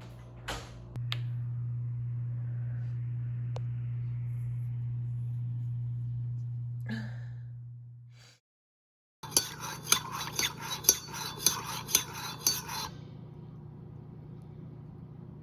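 A steady low hum fades out about eight seconds in. After a short silence, a spoon clinks against a cup about ten times, roughly three a second, as in stirring a cup of tea.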